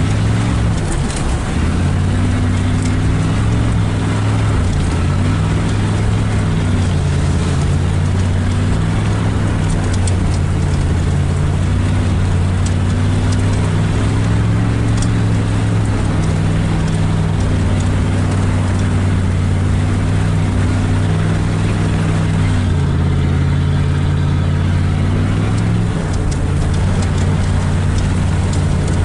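Pickup truck engine running while driving a wet, muddy dirt road, its pitch stepping up and down several times, over a steady hiss of tyres and water with scattered sharp ticks.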